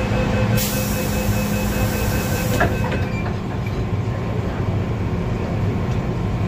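MTR first-generation M-Train electric multiple unit heard from on board: a steady low rumble of the car and running gear. A few steady tones sound through the first half, and a loud hiss runs from about half a second in until about two and a half seconds, ending in a click.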